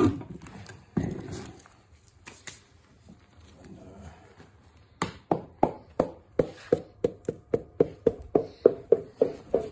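Hammer blows on a bar driving a stuck piston out of its bore in a Rootes 1600 engine block. A few scattered knocks, then from about halfway a steady run of blows about three a second, each with a short metallic ring.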